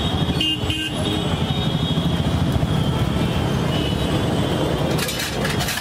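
Steady roadside traffic rumble with two short vehicle-horn toots about half a second in, and a brief clatter near the end.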